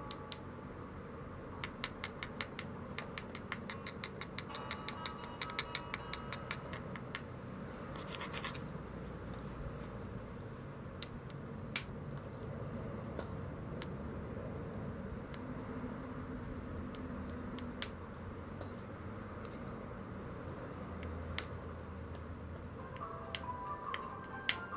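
A stone biface being worked at the edge by hand: a fast run of sharp, scratchy stone-on-stone clicks, about four or five a second, for several seconds, then only occasional single clicks.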